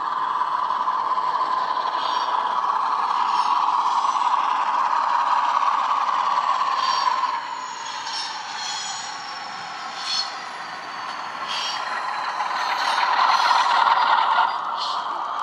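Bachmann Class 47 model locomotive's factory-fitted DCC sound decoder playing diesel engine sound through its small onboard speaker, with the wheels of the loco and its wagons clicking and rattling on the model track. The engine sound is steady, eases off about halfway through, then grows louder again as the locomotive passes close by near the end.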